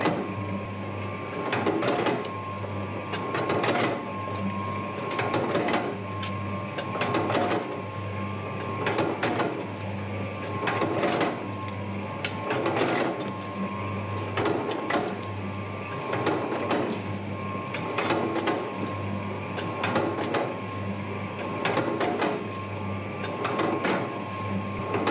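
Electric dough mixer kneading bun dough: a steady motor hum with the dough slapping around the bowl in a regular swishing thump about every two seconds.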